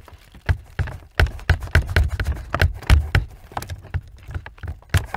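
Irregular clicks, taps and knocks, several a second, from a screwdriver prying and tapping at the plastic clips and aluminium pipes of a car's heater core, with dull low bumps underneath.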